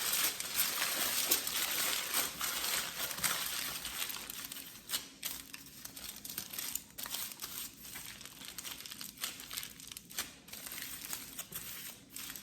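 Aluminium foil crinkling and crackling as a soft cake mixture is rolled and shaped into a log inside it, busiest in the first few seconds, then quieter with scattered crackles.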